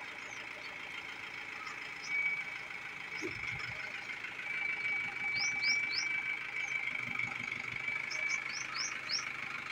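Birds chirping in short, quick rising notes, three together about halfway through and four more near the end, over a steady high-pitched whine and a faint low rumble.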